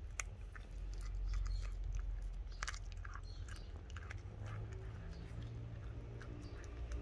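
F1 Savannah cat chewing and biting into a raw chicken leg, with irregular crunching clicks, the loudest near the start and about two and a half seconds in.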